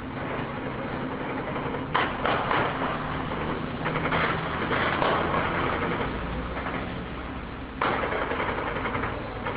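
Distant gunfire over a city: a sudden loud crack about two seconds in and another near the end, with rattling bursts of fire in between, over a steady low hum.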